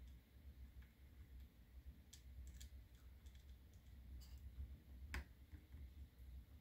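Faint scattered clicks and taps of a plastic pick against the Hubsan Zino Mini Pro drone's frame and connector as a small cable is worked into place, over a low steady hum.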